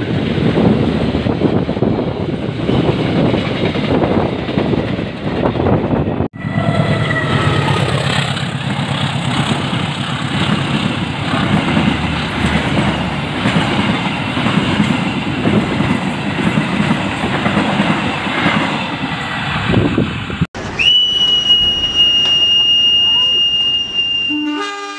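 Indonesian passenger trains running past close to the track: coaches rumbling by with wheels clattering over the rails, then, after a sudden cut, a second train going by. After another sudden cut, a long steady high-pitched tone holds for about four seconds near the end.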